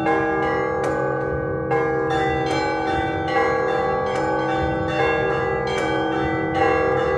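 Orthodox church bells ringing a festive peal (prazdnichny zvon): several bells of different pitches are struck in a steady rhythm, about one strike a second, and their tones ring on and overlap.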